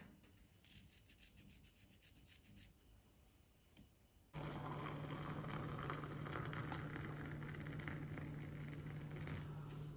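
A few seconds of quick, repeated rubbing strokes, then a small electric motor switches on suddenly about four seconds in and runs with a steady low hum.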